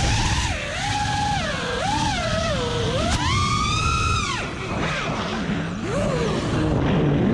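Armattan Marmotte FPV quadcopter's brushless motors and props whining, the pitch sweeping up and down with the throttle through flips and rolls, with one long high surge around the middle before it drops away.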